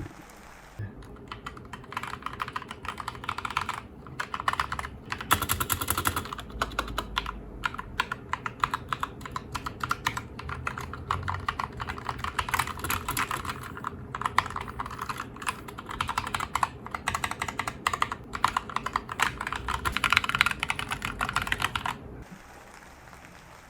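Redragon Kumara mechanical keyboard typed on fast: a dense clatter of key switches clicking and keycaps bottoming out, in runs broken by brief pauses, stopping a little before the end.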